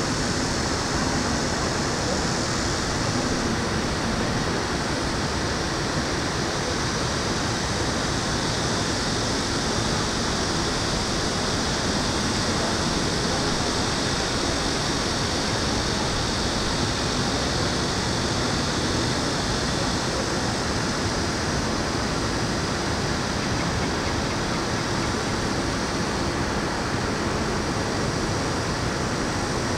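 Steady outdoor city ambience: a constant, even rushing noise from the surrounding urban area, with no distinct events standing out.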